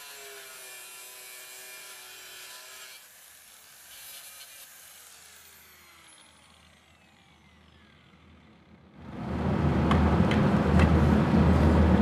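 Angle grinder with a cut-off wheel cutting through a copper tube stub, its motor whining steadily for about three seconds, then spinning down with a falling whine once the cut is through. About nine seconds in, a louder steady machine hum starts.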